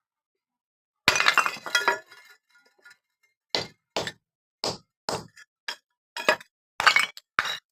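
Clay degchi (earthenware pot) breaking about a second in, with fragments clinking as they settle, then a series of separate sharp crunches roughly every half second as the pieces are crushed.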